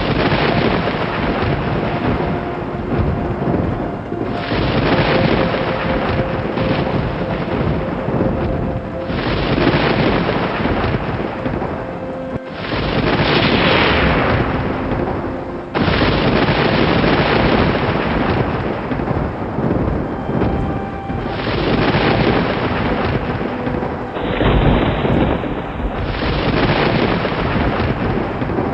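Thunder rumbling over steady rain, a continuous loud storm noise whose character changes abruptly several times, as if separate recordings were joined. A few faint steady tones sit underneath.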